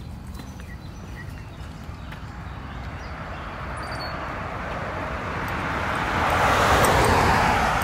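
A vehicle passing on the road: its tyre and engine noise swells over a few seconds, is loudest near the end, then begins to fade.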